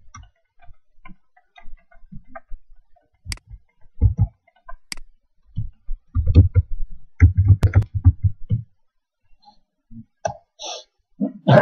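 Typing on an ASUS K54 laptop's keyboard: irregular key clicks, with a run of heavier low thuds from the keystrokes in the middle.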